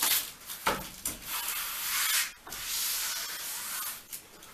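Hands rubbing and pressing a paper poster flat against a wall to stick down its tape: a couple of sharp paper clicks, then two long rasping rubs of about a second each.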